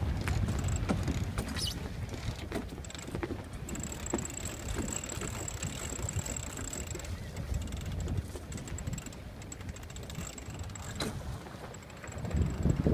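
Wind buffeting the microphone and water noise as a 34-foot sailboat sails in a gusty breeze, with scattered clicks from the boat. The wind noise eases in the middle and gusts louder again near the end.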